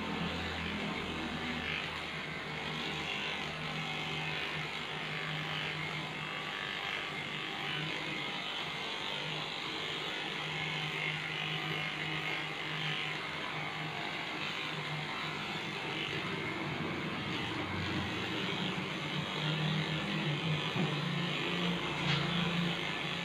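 Cordless electric dog clipper buzzing steadily as it shears through a long-haired dog's coat.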